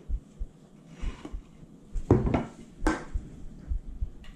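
Dark beer being poured from a can into a pint glass, with uneven glugging surges and a few knocks and clinks of can and glass.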